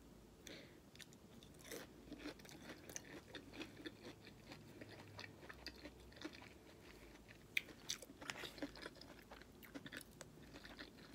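Faint close-up chewing and crunching of fried Chinese takeout food, with many small scattered clicks and mouth smacks.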